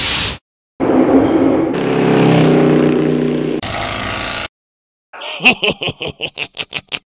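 Toy car engine sound effects: a swish dies away at the start, then a car engine runs for a few seconds and stops. After a short gap, a rapid stuttering string of engine pulses starts and speeds up near the end.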